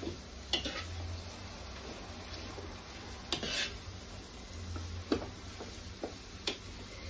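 Cabbage, bacon and sausage being stirred in a large frying pan over a low sizzle, the utensil scraping and knocking against the pan about four times.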